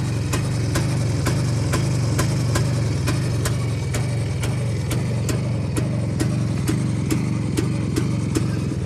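IZh single-cylinder two-stroke motorcycle engine idling steadily, with a sharp tick about twice a second.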